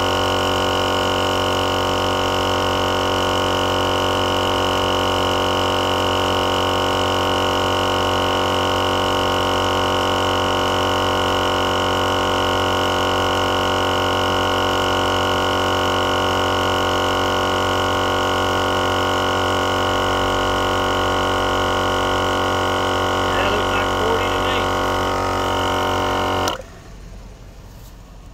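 GSPSCN dual-cylinder 12V portable air compressor running with a steady drone while pumping a truck tire up to about 40 psi, then cutting off suddenly near the end.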